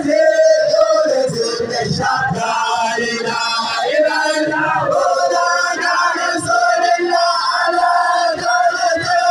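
A group of men chanting a devotional song together in unison, loud and continuous, with crowd noise around them.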